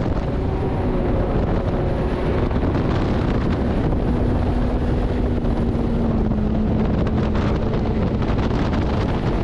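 LS3 V8 jet boat's engine running steadily at speed, with wind buffeting the microphone.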